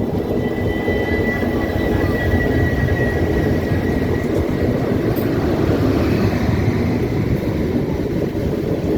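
Steady running noise of a passenger train moving along the track, a dense rumble of wheels on rail, with a faint high whine in the first few seconds.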